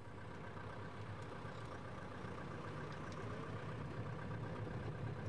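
John Deere 6000 series tractor's diesel engine running steadily, heard faintly from inside the cab with the transmission just put in gear. The hum grows slightly louder toward the end.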